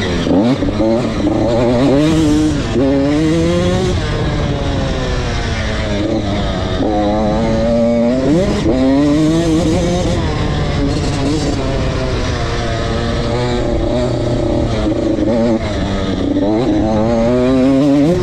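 Motocross bike engine revving hard and easing off as it is ridden around a dirt track. Its pitch climbs sharply about a second in, again around eight seconds, and near the end, falling away in between.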